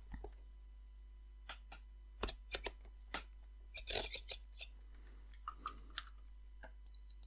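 Faint clicks and clatter of a multimeter's rotary range selector being turned and its test leads handled, with a short high beep near the end from the meter's continuity tester.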